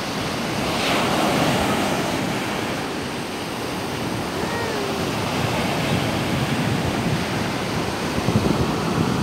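Sea waves breaking and foaming surf washing up a sandy beach, a steady rush with a wave crashing about a second in.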